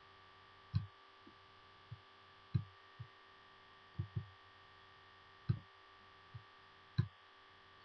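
About ten faint, irregular clicks, typical of a computer mouse being clicked while dragging points in a 3D program, over a steady low electrical hum.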